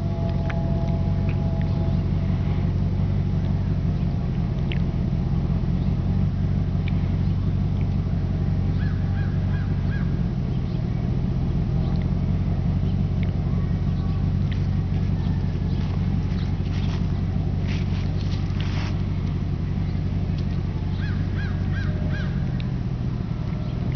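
A steady low motor-like hum with several even low pitches runs throughout, with a few faint, short high chirps about nine seconds in and again near the end, and scattered light clicks.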